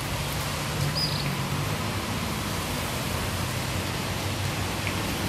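Steady outdoor background noise: an even hiss with a faint low hum underneath, and one brief high chirp about a second in.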